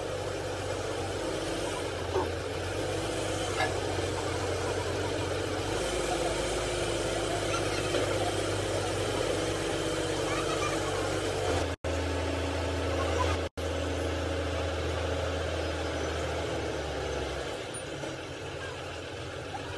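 An engine runs steadily with a low drone amid workshop noise, with faint voices in the background. The drone changes abruptly at cuts.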